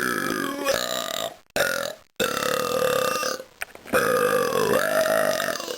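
A person burp-singing: long, drawn-out pitched belches in four phrases, with short breaks between them.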